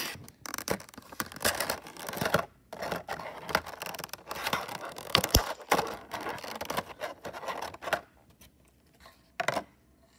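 Crinkling, scraping and clicking of plastic packaging as a Gemini Jets diecast model's clear plastic tray and wrapping are handled and pulled apart, a dense run of small crackles that stops about eight seconds in, with a couple of clicks near the end.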